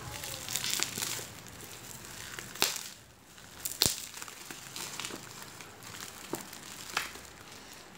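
Plastic-taped, bubble-wrapped parcel crinkling and rustling as it is handled, with four sharp snaps scattered through.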